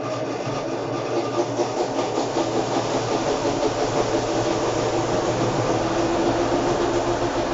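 Sharp ES-KS70K washing machine running a cycle: a steady motor hum with a churning flutter, and a steady motor tone that comes in two or three seconds in.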